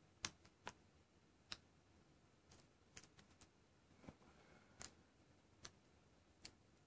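About a dozen faint, irregularly spaced small clicks and ticks of a thin plastic pry tool working under the heat-softened, glued plastic top cover of an HTC Desire Eye phone, lifting it from one corner.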